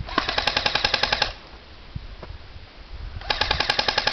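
Airsoft rifle firing two full-auto bursts of about a second each, about two seconds apart, at roughly fifteen shots a second.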